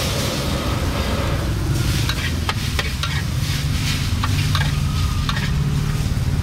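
Food frying, with frequent short clinks and scrapes of a utensil stirring it, over a low steady hum.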